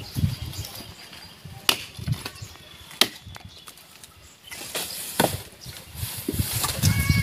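Axe chopping into a tree trunk by hand: a few sharp, irregularly spaced blows, with rustling and knocking between them.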